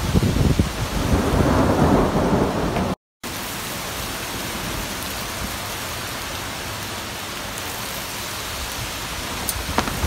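Storm wind and heavy rain: loud, gusty wind buffets the microphone for about three seconds, then after a brief dropout there is a steadier hiss of rain that grows louder again near the end.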